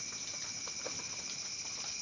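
Rain falling, with separate drops pattering irregularly over a steady high-pitched hiss.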